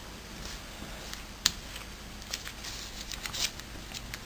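Square of origami paper being handled and folded: soft rustling and crisp crinkles, with a sharp tick about a second and a half in and a run of small ticks near the middle.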